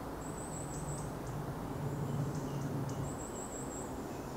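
Small bird singing very high, thin drawn-out notes with a few short high chips between them, over a steady low background rumble.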